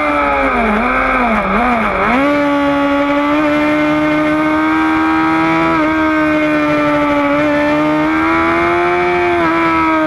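Sport motorcycle engine at high revs, recorded from the bike's own onboard camera. Its pitch dips and recovers sharply three times between about one and two seconds in, then holds high and nearly steady with small steps.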